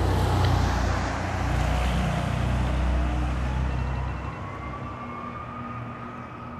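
A fire truck siren wailing in one slow sweep, falling in pitch and then rising again. Under it is a heavy vehicle rumble that drops away about four seconds in.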